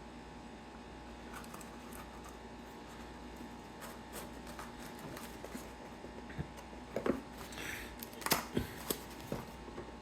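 Hands opening a watch's packaging: light scattered clicks and taps that get busier toward the end, with a brief rustle and a few sharper knocks in the last few seconds.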